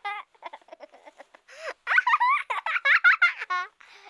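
Baby doll's electronic voice playing recorded baby sounds: high-pitched babbling and giggles in short rising and falling calls. A few soft clicks come first, and the calls are loudest in the second half.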